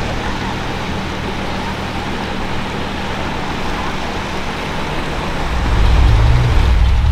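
Motorboat with a wake tower running at speed: a steady low engine drone over a rushing hiss, the drone growing louder about five and a half seconds in.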